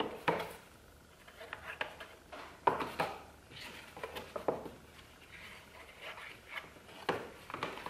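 Cardboard box and Titebond wood glue bottle being handled while glue is squeezed and spread along the box's inner sides: scattered knocks and scrapes, loudest about three seconds in and again near the end, with quieter rubbing between.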